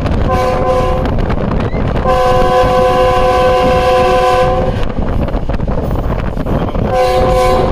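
Air horn of a Pakistan Railways GEU-20 diesel-electric locomotive, heard from inside its moving cab. It sounds several notes at once: a short blast, then a long blast of about two and a half seconds, then another blast near the end. Under it runs the steady rumble of the engine and wheels.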